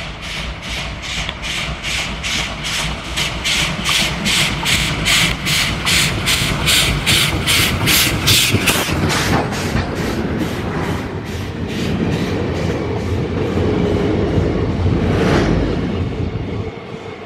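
1958 WP-class Pacific steam locomotive 7000 'Ashoka' working hard as it approaches and passes at speed. Its exhaust beats come about three a second and grow louder until the engine passes about nine seconds in. Then the coaches rumble past on the rails, and the sound drops away as the last coach goes by near the end.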